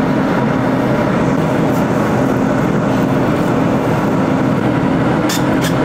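Kitchen appliance fan running with a loud, steady rushing noise and a low hum. A quick series of light clicks begins near the end.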